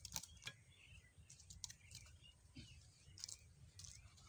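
Mostly quiet, with a scattering of faint cracks and knocks from wood being split with an axe and splinters pulled off the log by hand. The firmest crack comes right at the start and another about half a second in.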